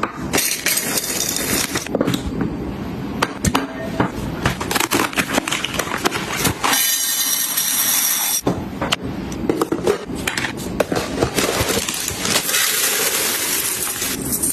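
Clinks, knocks and rustling of household items being handled, with a steady hiss for a second or two around the middle.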